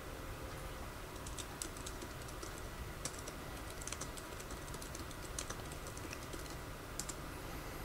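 Typing on a computer keyboard: faint, irregular key clicks as text is entered, over a low steady background hum.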